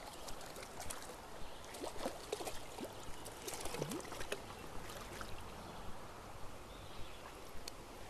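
Stream water running over shallow riffles, with a cluster of small splashes and clicks a couple of seconds in as a hooked brown trout is brought to hand at the surface.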